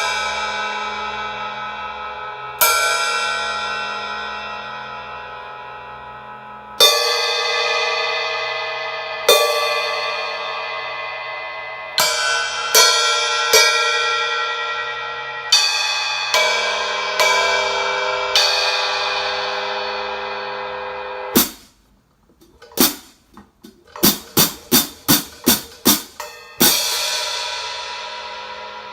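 15-inch Zildjian Sound Lab prototype hi-hat cymbals being played. About a dozen strikes are each left to ring out with a long fading shimmer. About two-thirds of the way in they change to short, tightly closed strokes, including a quick run of about eight. Near the end one more strike rings out long.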